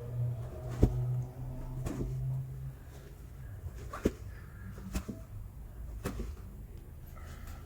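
A few sharp clicks, about five spread over several seconds with the loudest about a second in, from hands-on manipulation of a patient's body during chiropractic treatment, over a low hum in the first few seconds.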